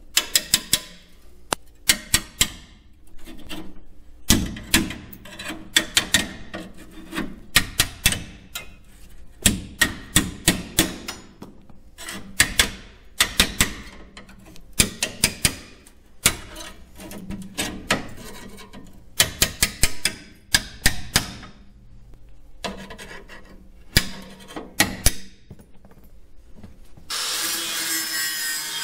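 Sheet-metal work on the truck body: repeated short bursts of sharp metallic knocks and scraping. Near the end a flap-disc grinder settles into steady grinding.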